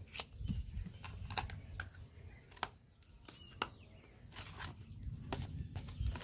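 Scattered light clicks and taps of bread rolls and a plate being handled as the rolls are moved out of a small basket.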